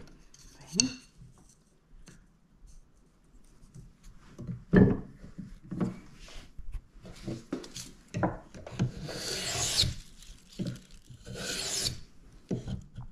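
Small hand plane taking shavings off a violin bass bar blank: two long hissing strokes in the last few seconds, after a few knocks of tools being handled on a wooden workbench, the loudest about five seconds in.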